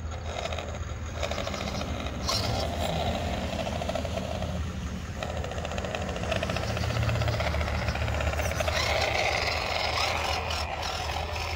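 WPL C34 RC crawler's 370 electric motor and two-speed gearbox whirring under load as the truck climbs. The sound gets louder about two seconds in and turns higher-pitched from about eight seconds in.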